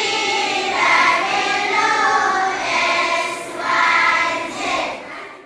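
A class of schoolchildren singing together in unison, fading away near the end.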